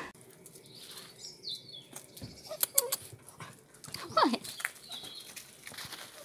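A small dog gives one short whine that falls steeply in pitch about four seconds in, among soft rustling and steps in dry fallen leaves.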